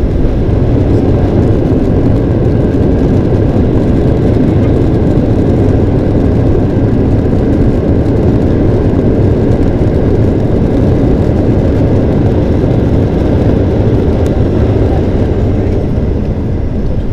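Boeing 737-800's CFM56-7B engines and undercarriage during the landing rollout, heard inside the cabin: a loud, steady, deep roar that eases slightly near the end.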